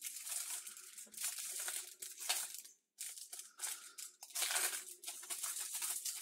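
Paper wrapper crinkling and tearing in irregular bursts as a paper straw is unwrapped.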